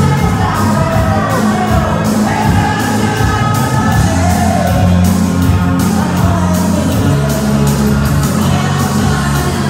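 Loud dance music with a steady beat and a singing voice, playing for dancers.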